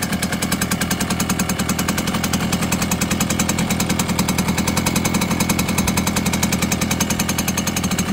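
1976 Komar 3 (type 2350) moped's 50 cc single-cylinder two-stroke engine idling with a steady, rapid popping beat.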